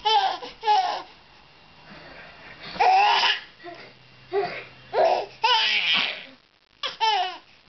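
Baby laughing in a series of short bursts, the loudest about three seconds in.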